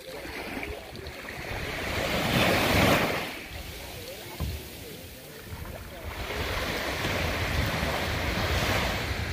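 Sea surf and wind rushing on the microphone, in two swells: one peaking about three seconds in, the other building from about six seconds on.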